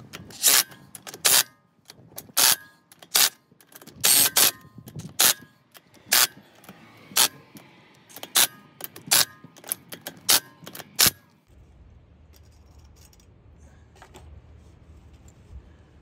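Sharp metallic clicks and clinks in an irregular run, as small hub bolts are backed out with a cordless driver and socket. They stop about eleven seconds in, leaving a faint low hum.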